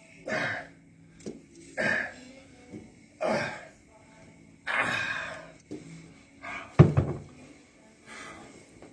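A man exhaling hard with each rep of a dumbbell raise, four breaths about a second and a half apart. About seven seconds in comes a heavy thunk, the loudest sound, as the dumbbells are set down.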